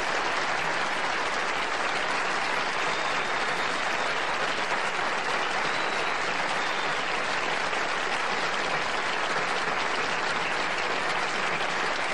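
Studio audience applauding steadily at the end of a violin and piano performance.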